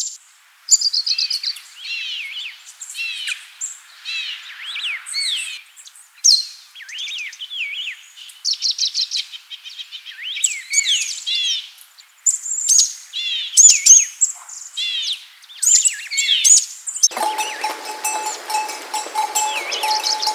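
Small songbirds singing, with many quick high chirps and trills overlapping one another. About 17 seconds in, this cuts abruptly to a steady noisy background with bells ringing.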